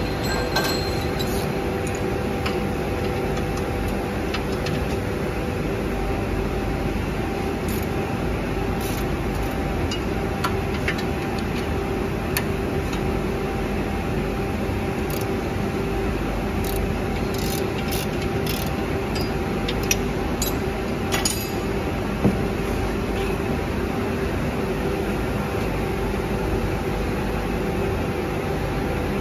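Steady workshop machinery hum with a held tone. Scattered light metallic clicks and taps, clustered through the middle, come from hand tools working on the motor mount.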